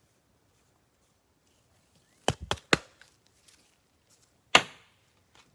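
Short sharp taps of a stack of trading cards against a tabletop: three quick taps a little over two seconds in, then a single louder tap near the end.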